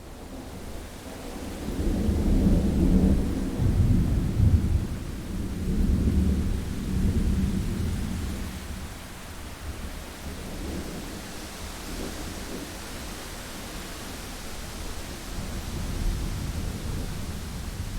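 Thunderstorm: a long, low rolling thunder rumble swells about two seconds in and dies away by about eight seconds, over steady rain, with fainter rumbles later.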